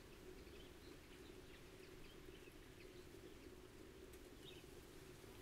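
Near silence: a faint steady low hum, with a few faint, short, high chirps scattered through it.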